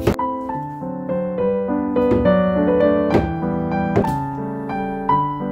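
Piano music playing, with about four sharp knife taps on a plastic cutting board as a green onion and a block of tofu are sliced.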